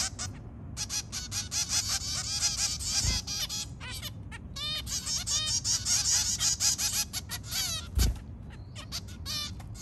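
Zebra finches, adults and fledglings, chattering with rapid, nasal, beeping calls and short chirps. Twice there is a dull low thump, the second the loudest moment.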